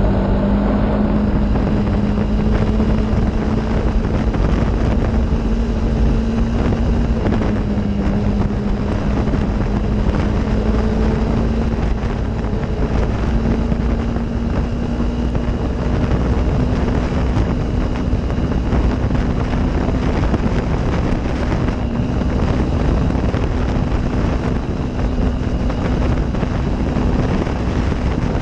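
Off-road vehicle engine running at a steady cruising speed, its pitch dipping and rising slightly, with heavy wind buffeting on the microphone.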